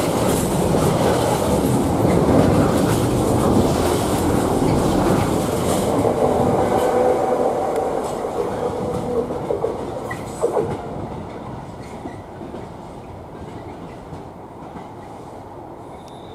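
Loaded container flat wagons of a long intermodal freight train rumbling and clattering over the rails as they pass close by, then fading steadily as the tail of the train moves away. A thin wheel squeal is heard around the middle, followed by a single sharp knock.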